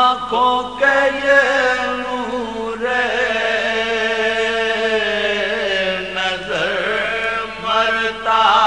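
Soz-style chanting of an Urdu marsia by an unaccompanied male voice, drawing out long, slowly bending melismatic notes, with a brief break about six and a half seconds in.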